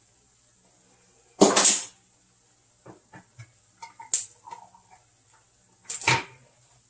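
Kitchen handling clatter: two loud clattering knocks, one about a second and a half in and one near the end, with a few lighter knocks and clicks between, over a low steady hum.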